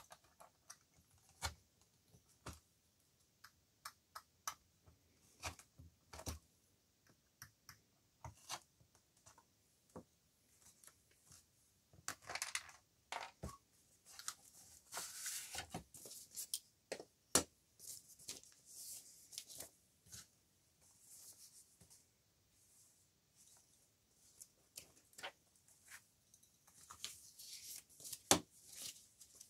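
Hand awl piercing holes through a stack of paper along a plastic piercing guide: scattered sharp clicks and taps. Paper rustles in stretches, about twelve seconds in and again near the end.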